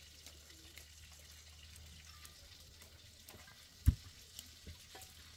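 Gravel and small stones scraping and clicking faintly as a toddler digs in a gravel pile with a small toy, with one sharp knock a little under four seconds in.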